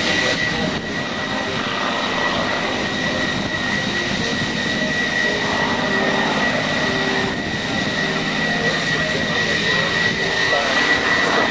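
Supermarine Spitfire's V12 piston engine running steadily, with a thin steady high whine over the engine noise.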